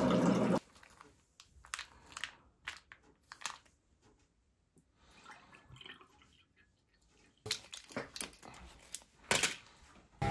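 A countertop water dispenser runs as it fills a glass, with its pump and water stream cutting off about half a second in. Then come scattered small clicks and knocks, a quiet pour of liquid from a drink carton into a glass, and a few sharp knocks near the end.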